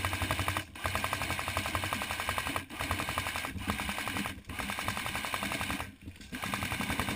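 Airsoft gun firing on full auto at close range: long strings of rapid, evenly spaced shots in about six bursts, with short breaks between them.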